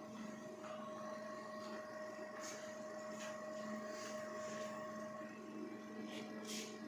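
ICU ventilator running with a steady, even hum of several fixed tones, with a few short hissing ticks from about halfway through.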